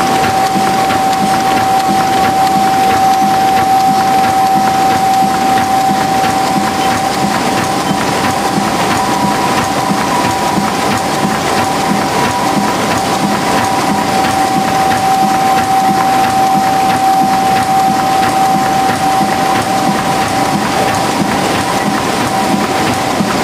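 Tymi Ustar-102 UV spot coater running at speed with sheets passing through: a steady mechanical clatter of many rapid fine clicks under a constant whine.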